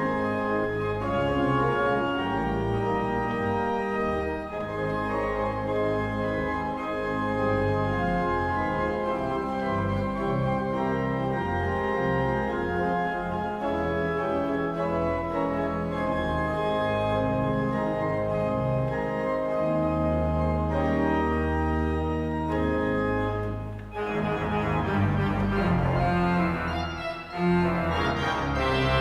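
Church organ playing sustained chords over a deep bass. A heavy low pedal note sounds for a few seconds, then about twenty-four seconds in the sound turns fuller and brighter.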